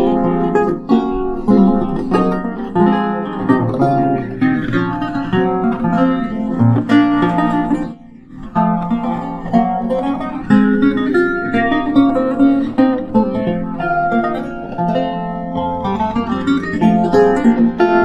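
Lute playing a continuous melody of plucked notes and chords, with a brief pause about eight seconds in.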